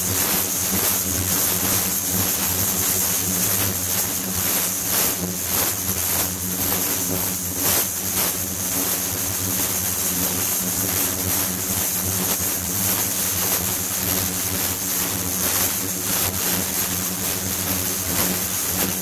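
Ultrasonic tank running with the water in it agitated: a steady hiss of churning, cavitating water over a low hum, with two high-pitched whining tones held throughout.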